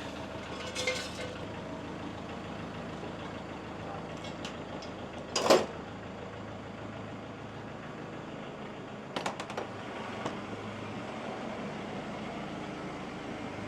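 Sharp metallic clank about five and a half seconds in, then a few lighter metal clinks about nine seconds in, over a steady low mechanical hum.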